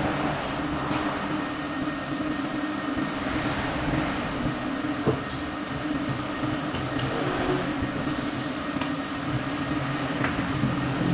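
Steady mechanical hum of tyre-shop machinery running, with a few light knocks as a wheel is handled.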